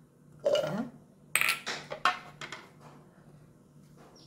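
Peeled shallots and other whole ingredients dropped from a small bowl into an empty clear plastic mixer-grinder jar, clattering against the jar in a few sharp knocks. The two loudest knocks come about a second and a half and two seconds in.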